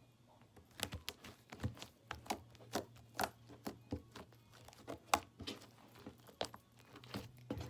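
Soft homemade slime worked in the hands, making a run of sharp, irregular clicks and pops, about two or three a second.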